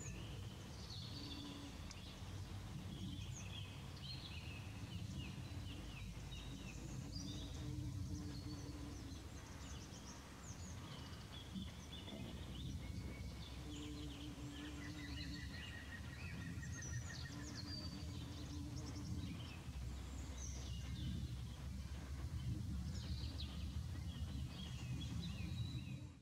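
Faint ambience of several small songbirds singing and chirping, with a fast trill in the middle, over a steady low rumble and a few stretches of low hum.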